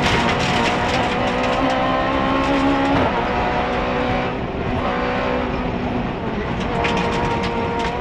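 Rally car engine heard from inside the cockpit, running hard at high revs over tyre and road noise. About three seconds in the revs drop, then they climb again as the car pulls away.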